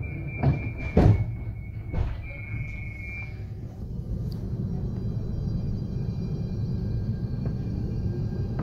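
Inside a DSB S-tog Litra SA commuter train: a steady high door-warning tone sounds for about three seconds while the sliding doors shut with a few thuds, the loudest about a second in. The train then starts off with a low running rumble and the high steady whine of its Siemens GTO-VVVF traction inverter.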